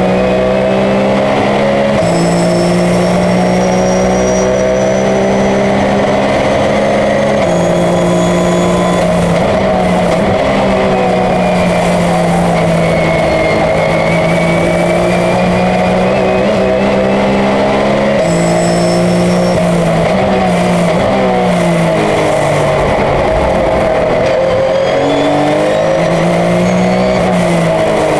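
Porsche 911 race car's flat-six engine running hard at high revs. The note holds steady for long stretches, with a few sudden steps in pitch from gear changes, and near the end it dips and climbs again as it slows and accelerates.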